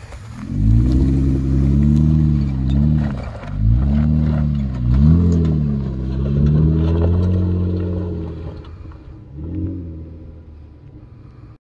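Jeep Wrangler JKU's V6 engine revving up and down under load as it crawls over rocks, the revs rising and falling several times. It fades as the Jeep pulls away, rises briefly once more, and cuts off suddenly near the end.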